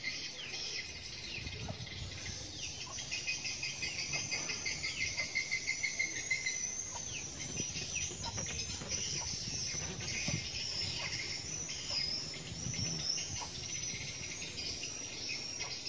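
A dense, high-pitched chorus of insects chirring steadily, with a few bird chirps mixed in and a low rumble underneath.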